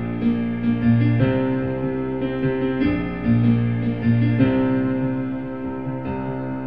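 Piano voice of a stage keyboard played with both hands: a bass line under chords that change about every second and a half.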